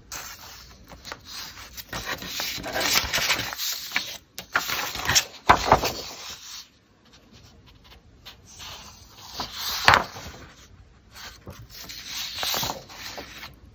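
Sheets of printer paper rustling and sliding against each other as they are handled and lifted, in several bouts, with the sharpest rustles about five and a half and ten seconds in.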